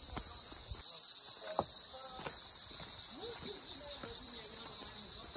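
Steady high-pitched chorus of insects, with faint scattered clicks and short chirps beneath it.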